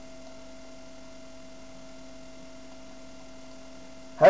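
Steady electrical hum with two constant tones over a faint hiss, unchanging throughout.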